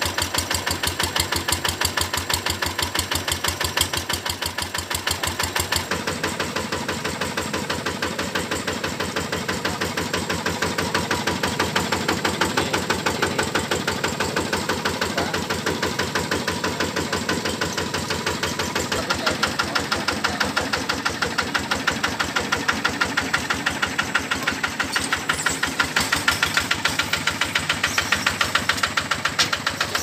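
Kubota RD 110 single-cylinder diesel engine of a Zaaga BN 120 AT mini combine harvester running, with a steady, even beat of firing strokes; it grows somewhat louder in the second half.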